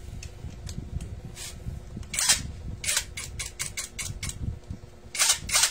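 Cordless impact wrench with a socket fitted, triggered in short bursts: a few separate blips, a quick run of about six a second, then two stronger bursts near the end, over a low steady background hum.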